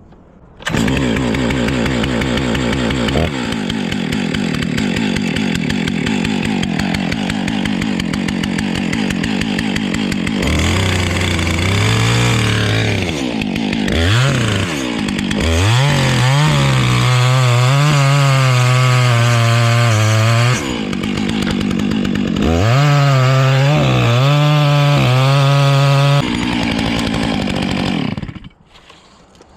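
Chainsaw running, revved up and down, then held at high speed for two long stretches of several seconds, dropping off near the end.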